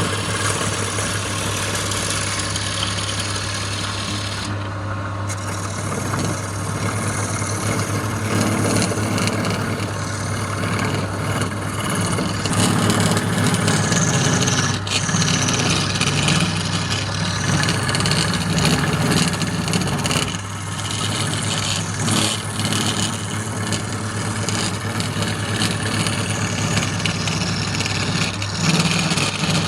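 Wood lathe motor running with a steady low hum while a turning tool scrapes and cuts the spinning wood, the rasping rising and falling unevenly.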